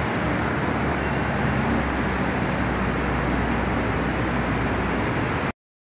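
Steady outdoor background noise, a low rumble with an even hiss over it, that cuts off suddenly about five and a half seconds in.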